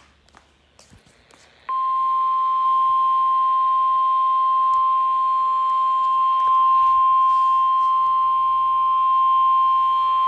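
NOAA Weather Radio 1050 Hz warning alarm tone: a single steady tone that starts about two seconds in and holds for about nine seconds. It is the alarm sent during the required weekly test to trigger weather-alert receivers.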